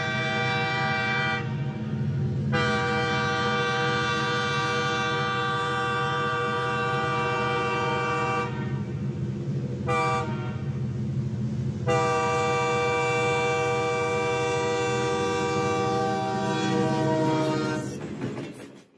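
Train sound effect: a multi-note train horn sounding in long held blasts with short breaks between them, over a steady low rumble of the moving train. It fades out near the end.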